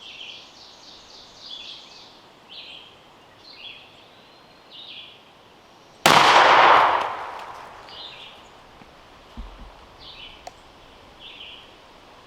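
A single shotgun blast about six seconds in, loud and sudden, with its echo dying away over a second or so; it is the shot that drops a jake turkey.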